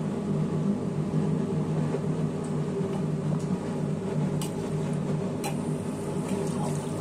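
Steady electric hum of a kitchen appliance's motor, with two light clicks about a second apart near the middle.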